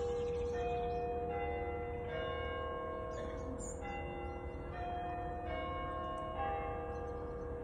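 Church tower bells chiming a melody, a new note struck about every three-quarters of a second, each ringing on over the others; plausibly the church clock's three-quarter-hour chime.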